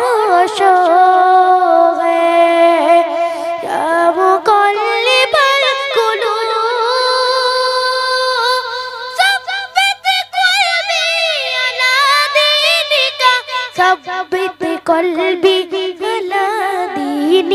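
A boy singing a Bangla Islamic gojol solo into a microphone, holding long, wavering notes and breaking into quicker ornamented runs.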